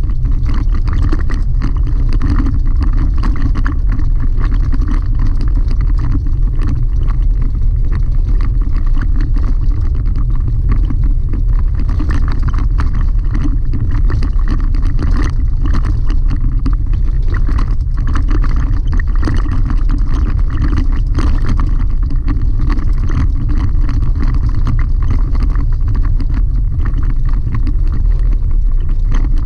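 Chevy Colorado ZR2 pickup driving on a gravel road, heard from inside the cab: a loud, steady low rumble of tyres and road noise, with a constant patter of small clicks from the gravel.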